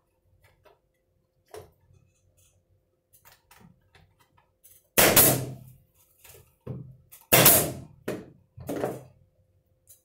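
Wooden bird-house pieces knocking and bumping as they are fitted together and pressed into place by hand. A few faint clicks come first, then about halfway in five loud knocks follow in quick succession, the first and fourth the loudest.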